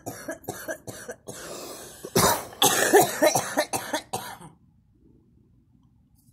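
A girl coughing from smoke: a run of short coughs, then harder, louder coughs that stop about four and a half seconds in.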